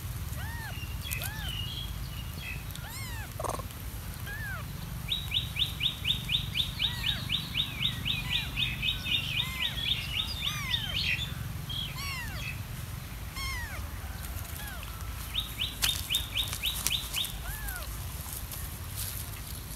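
Young kitten mewing again and again in short rising-and-falling mews. Twice it is cut across by a louder, rapid high-pitched trill of about six notes a second, the longer run in the middle.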